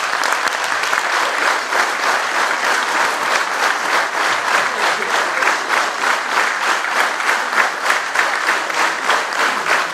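Audience clapping in a hall, a steady applause of many hands.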